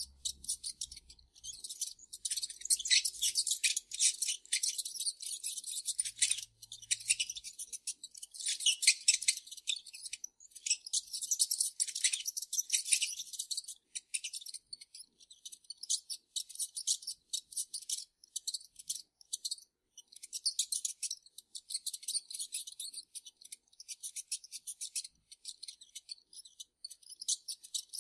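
Mice squeaking: rapid runs of shrill, high-pitched chittering squeaks that come in bursts of a few seconds with short pauses between them.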